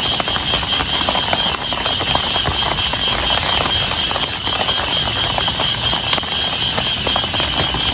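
Heavy rain drumming on a tent, a dense steady patter of many drops, with a steady high-pitched drone over it.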